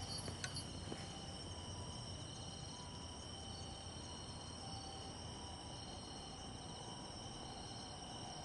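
Night insects trilling steadily in a faint, high-pitched chorus, with a few faint clicks in the first second.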